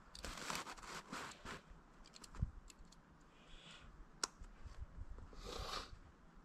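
Gloved hands working blue plastic maple sap tubing with an orange-handled hand tool: faint scrapes and rustles with scattered sharp clicks, one click standing out about four seconds in and a brief rustle near the end.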